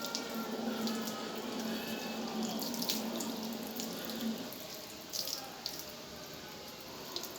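Running water from a tap or sprayer splashing during a dog's bath, a steady rush with scattered small splashes and drips. A low steady hum runs under it and stops a little past halfway.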